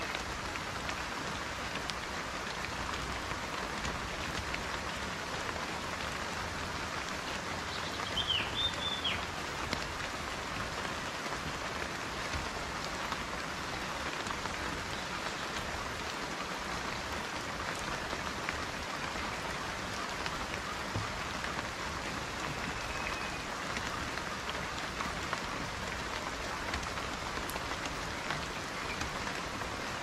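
Steady rain falling, an even hiss with many small drop ticks. A short chirp comes about eight seconds in.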